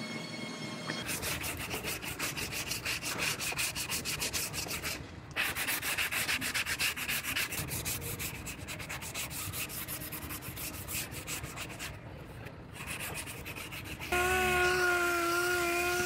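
Body filler on a car's steel rear quarter panel being block-sanded by hand: a rhythmic back-and-forth rasping, with brief pauses about five and twelve seconds in. Near the end a steady hum with a slightly wavering pitch comes in suddenly and is the loudest sound.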